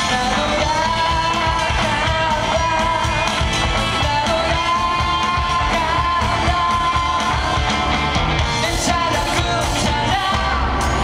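Live rock band: a male lead singer over electric guitars, bass guitar and a drum kit. The drum strokes grow sharper and more prominent near the end.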